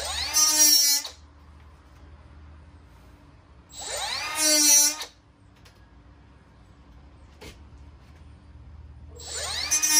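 Small cordless cut-off tool spinning up in three short bursts, its whine rising in pitch each time, as it cuts through the outer sheath of a parachute release cable without nicking the inner cable.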